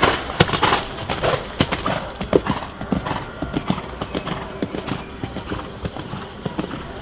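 Hoofbeats of a show-jumping horse cantering on a sand arena, loudest in the first couple of seconds as the horse passes close, then fainter.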